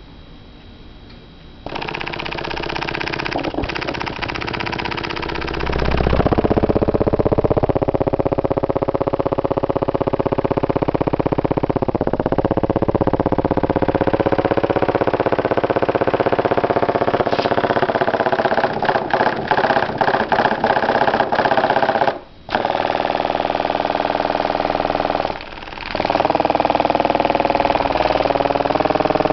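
Custom-built subwoofer driven hard at high volume, its bass heavily distorted into a loud, buzzing rasp. It starts about two seconds in, gets louder a few seconds later, and twice near the end briefly cuts out.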